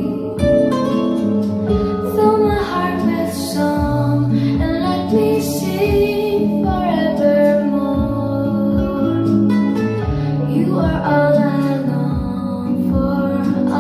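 A recorded song sung by a woman, with guitar accompaniment and sustained low bass notes under a gliding vocal melody.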